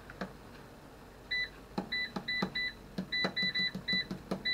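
Salter XL air fryer's digital control panel beeping as its buttons are pressed to set the time: a quick run of about nine short, identical beeps, each with a click, starting just over a second in.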